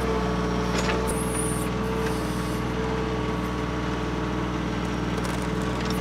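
TYM 2515 compact tractor's diesel engine running steadily with a steady whine while its backhoe bucket digs dirt and roots around a stump.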